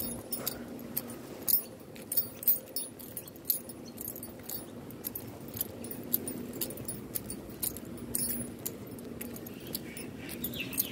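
Footsteps walking on an asphalt railway platform, with irregular sharp clicks and taps over a faint steady hum.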